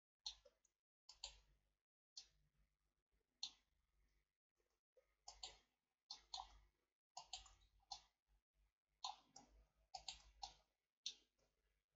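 Faint clicks of a computer mouse and keyboard during Shift+Alt+right-click selection. The clicks come singly and in quick pairs at an uneven pace.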